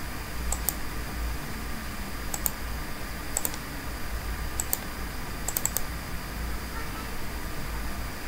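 Clicking on a computer: short sharp clicks, mostly in close pairs, in about five groups, over a steady low hum.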